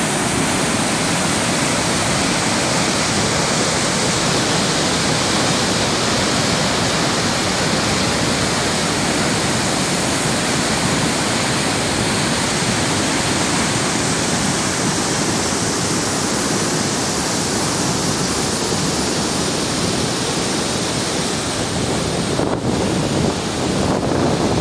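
Rapids of the River Dochart at the Falls of Dochart, running high and in flood, a steady loud rush of white water, with a brief break about two seconds before the end.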